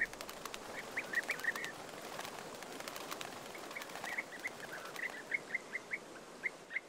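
European bee-eaters calling: short chirping calls in loose runs, over a faint steady background.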